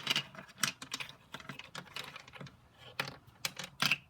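Loose plastic pieces of a disassembled barrel puzzle cube clicking and clattering against one another and a tabletop as they are handled and set down. The clicks come irregularly, with a few louder ones near the end.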